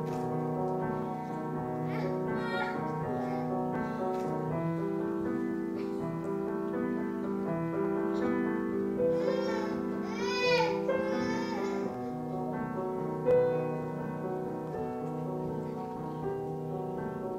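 Grand piano playing slow, sustained, overlapping chords. About nine seconds in, a high wavering sound rises and falls over the piano for a few seconds.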